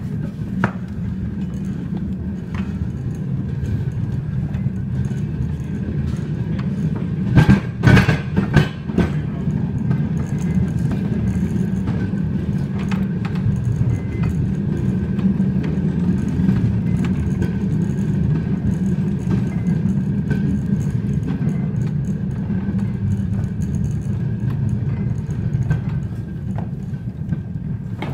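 Narrow gauge pump trolley rolling along the rails as its handle is pumped: a steady rumble of steel wheels on track with a thin steady whine, and a cluster of loud clanks about seven to nine seconds in.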